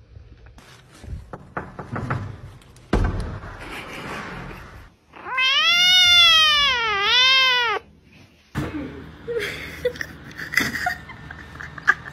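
A tabby kitten gives one long, loud meow of about two and a half seconds, its pitch sagging and then rising again near the end. Softer rustling and small knocks come before and after it.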